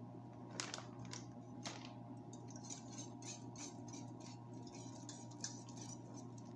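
A utensil clicking and scraping against a saucepan as shredded cheese is stirred into a thick béchamel to make a cheese sauce, with light clicks about three a second through the middle, over a steady low hum.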